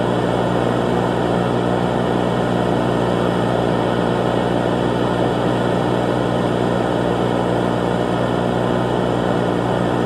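Emergency-alert-style alarm drone: a loud, steady, unchanging mass of held tones over a dense hiss, with no beat or pauses.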